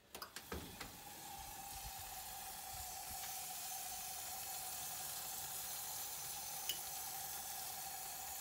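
An oven door is pulled open with a few clicks and knocks in the first second. Then a cheese-topped casserole of scalloped potatoes sizzles steadily in the hot oven, with a steady hum underneath.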